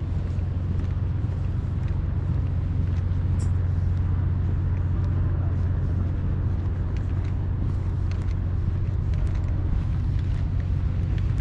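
Steady low rumble of a running engine, even in level throughout.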